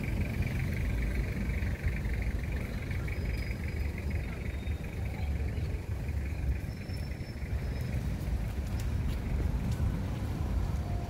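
Outdoor street ambience: a steady low rumble with no distinct events, and a faint high hum that fades out about five seconds in.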